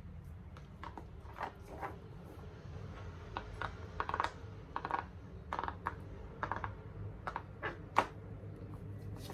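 Bubbles of a large silicone pop-it fidget toy being pressed: a series of irregular pops, some in quick runs, with the sharpest near the end. A steady low hum lies underneath.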